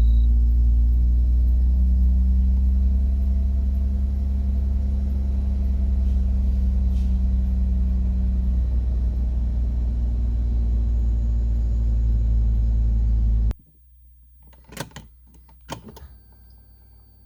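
2005 Hyundai Tiburon's 2.7-litre V6 engine running steadily, a car with a hard-starting and hesitation problem after cold start. The engine sound cuts off abruptly about 13 seconds in, followed by a couple of short clicks.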